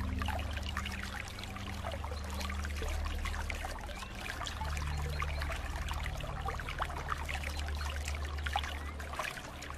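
Steady rain, a dense patter of many separate drops splashing, over a low steady rumble.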